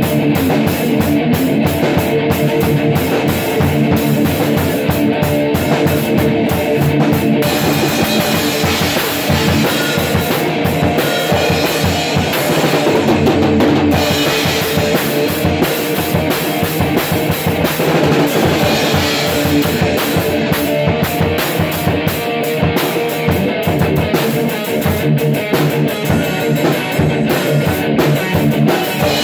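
Amplified electric guitar and a drum kit playing a loud, continuous rock jam.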